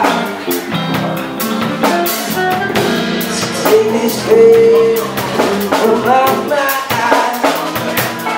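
Live band playing: drum kit, electric guitar and electric bass, with a voice singing over them.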